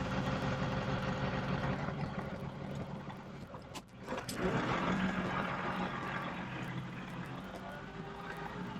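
John Deere 2038R compact tractor's three-cylinder diesel engine running steadily. Its sound dips briefly about four seconds in, then picks back up.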